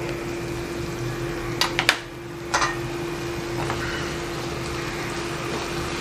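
Thick tomato-and-spice masala frying in a pan, a ladle knocking against the pan three or four times about one and a half to two and a half seconds in, over a steady mechanical hum.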